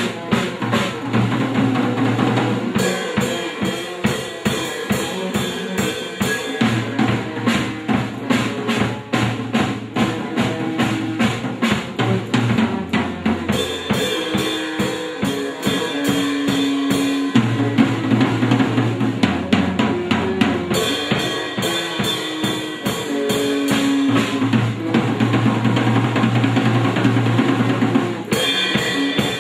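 Instrumental music played live by a small band: a drum kit beating steadily with kick, snare and cymbals over sustained low pitched notes. Near the end the playing stops and rings out.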